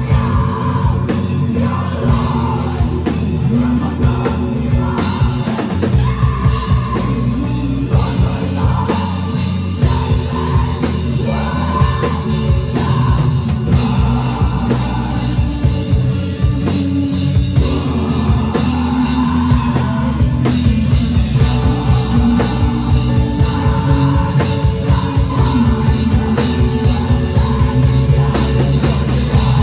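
Rock music with a singing voice over a full band, playing at a steady loud level.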